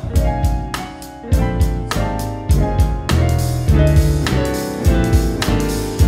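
Live jazz trio playing instrumental music: grand piano chords over acoustic upright bass and drum kit, with regular cymbal and drum hits.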